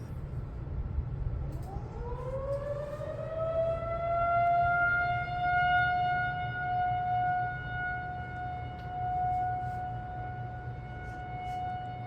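Federal Signal 2001-230 rotating electromechanical warning siren winding up: the tone rises in pitch over about two and a half seconds, then holds one steady note that swells and fades as the rotating head sweeps round. This is the start of the steady alert signal in a siren test.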